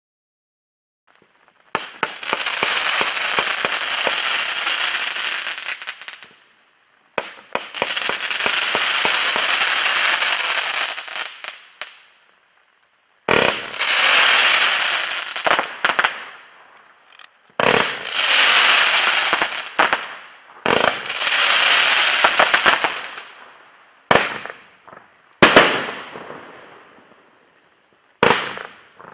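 A 45-shot, 500-gram consumer fireworks cake firing crackling comets in volleys, starting about two seconds in. Each volley opens with a sharp launch, then dense crackling fades away. The first two volleys last about five seconds each and the next three are shorter; near the end come three single shots, each with a brief crackle.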